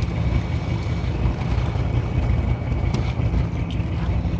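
Fishing boat's engine running with a steady low drone, with wind buffeting the microphone.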